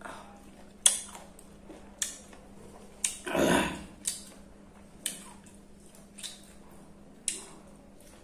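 A person chewing a spicy sweet-lime mash with her mouth close to the microphone: sharp wet mouth smacks roughly once a second, and a longer rush of breath about three seconds in.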